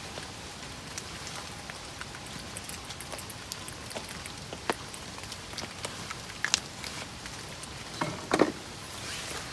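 Steady rain falling on a camp shelter, with many small drop ticks. A louder, dull knock comes about eight seconds in.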